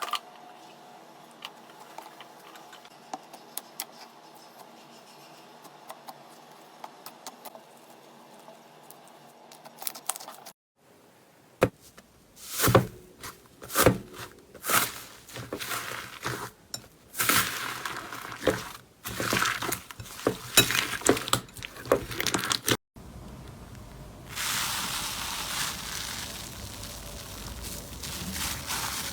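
Slime being handled in several short clips: faint scattered clicks at first, then loud irregular squishes and crackles as it is pressed and poked, and near the end a steady dense crackling.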